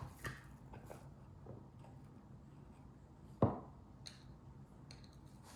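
Kitchen utensils and a jar handled while making chili vinegar: a few soft taps and clicks, and one sharp knock about three and a half seconds in.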